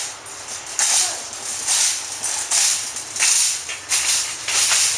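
Footsteps scuffing on a gritty outdoor surface, a short hissy scrape a little more than once a second.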